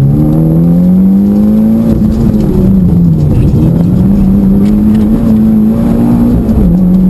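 Mitsubishi Lancer Evolution X rally car's turbocharged 2.0-litre four-cylinder engine, heard from inside the cabin, pulling hard with revs climbing. The revs dip about three seconds in, then climb and hold again, with a short dip near the end.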